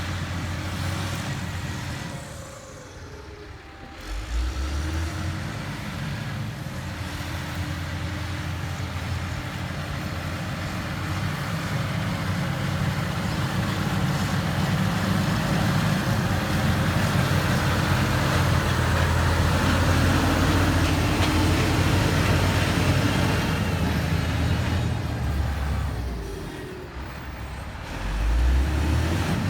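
Heavy construction machinery running steadily with a low diesel-engine hum, dropping briefly in level twice.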